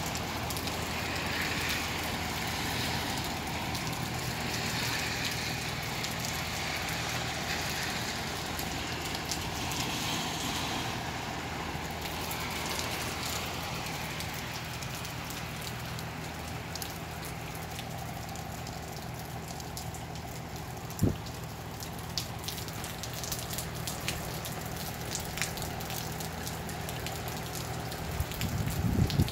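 Steady rain falling, with scattered raindrop taps. A single sharp knock comes about two-thirds of the way through, and a brief low thump near the end.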